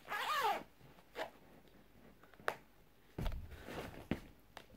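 A zip run on a round zip-up DVD case right at the start, then a couple of small clicks, and fabric rustling as a bag is handled in the last second and a half.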